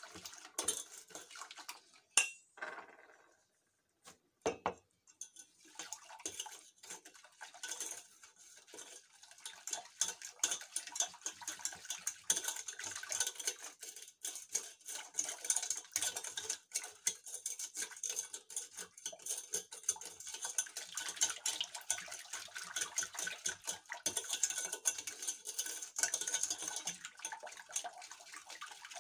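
Wire whisk beating a thin sugar, pastry-cream-powder and milk mixture in a stainless steel bowl: the tines clink and scrape rapidly against the metal. It starts with a few separate clinks, one sharp one about two seconds in and a brief pause, then settles into fast, continuous whisking.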